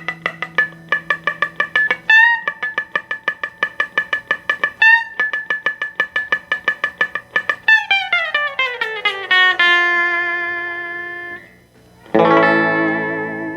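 Gretsch G6120 hollow-body electric guitar playing surf-rock: fast, evenly repeated picked notes, then a falling run into a held chord that wavers in pitch and fades, and a final strummed chord near the end.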